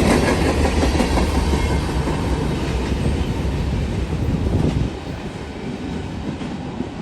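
Freight train rolling past, its wheels clicking over the rail joints with a heavy rumble that falls off about five seconds in.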